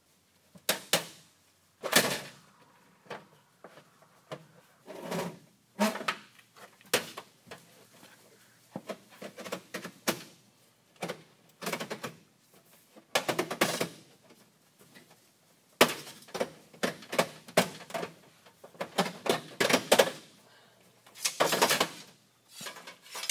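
Metal refrigerant tubing being pulled out of an old freezer's cabinet, knocking and rattling against the freezer's metal shelves and liner in irregular clusters of sharp knocks with short scraping stretches.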